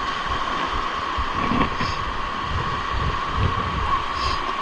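Small waves washing up and drawing back over a pebble beach, with wind buffeting the microphone in low gusts. A steady high hum runs underneath throughout.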